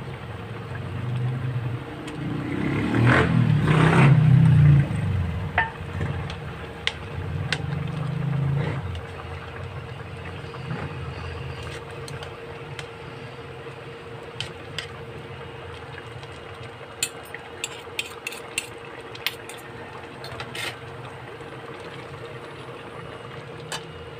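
A ladle stirring a simmering stew of chicken livers and gizzards in a steel pot, with scraping and knocking against the pot, loudest in the first few seconds. Around the middle come a run of short sharp clicks of the ladle against the metal. A steady hum runs underneath throughout.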